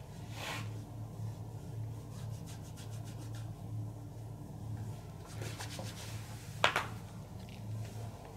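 Hands rubbing and stroking over skin during a massage, in soft brushing passes with faint clicks, over a steady low hum. One sharp snap stands out about two-thirds of the way through.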